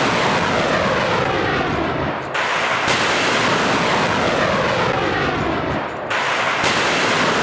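Fireworks going off: a dense, loud hiss with many overlapping falling whistles. The sound cuts off abruptly about two seconds in and again about six seconds in, and starts again each time.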